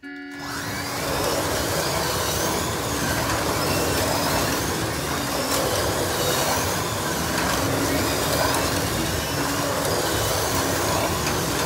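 Several 1/32-scale slot cars racing on a plastic track: their small electric motors whine, the pitch rising and falling as the drivers throttle on and off, over steady noise of the cars running in the slots. The sound comes in suddenly at the start and then holds steady.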